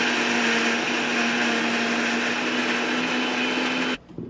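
Morphy Richards Icon DLX mixer grinder running at speed with a steady motor hum, grinding coriander, green chillies and spices with a little water into a wet paste. The motor cuts off suddenly about four seconds in, with a short knock just after.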